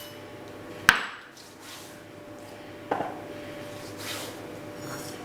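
Two knocks from handling things in a kitchen: a sharp click about a second in, then a duller knock about two seconds later.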